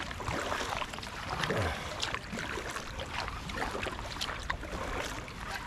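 Kayak paddling: a double-bladed paddle dipping and pulling through calm water, with small splashes and drips off the blades every second or so over a steady wash of water noise.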